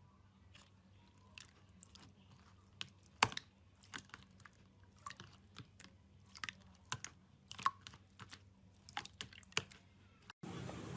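Slime being squeezed and poked, giving quiet, scattered sticky clicks and small pops, the sharpest about three seconds in. A steadier hiss comes in near the end.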